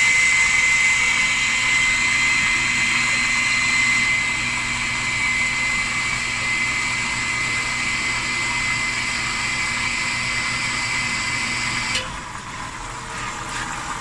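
Household electric water pump running steadily, a motor hum with a high whine, over the hiss of water feeding into a front-load washing machine as it fills. The sound cuts off abruptly about two seconds before the end.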